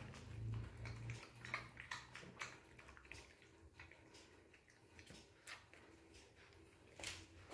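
Small dog eating dry kibble from a porcelain plate: faint, irregular crunches and clicks.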